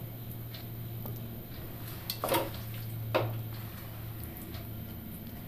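A spoon spreading egg masala over rice in a pot, with soft scraping and two sharp knocks against the pot about two and three seconds in. A steady low hum runs underneath.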